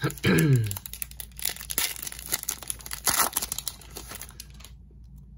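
Foil trading-card pack wrapper being torn open and crinkled as the cards are pulled out, a dense crackling rustle that stops about a second before the end. A brief falling hum is heard at the very start.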